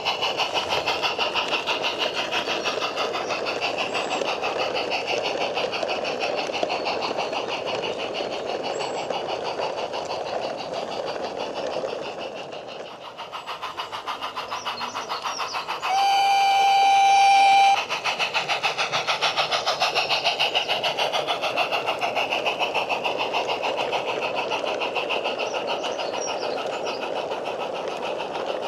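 Small 16mm-scale live-steam narrow-gauge locomotive chuffing rapidly as it hauls a rake of loaded hopper wagons. About halfway through, its whistle gives one blast of about two seconds.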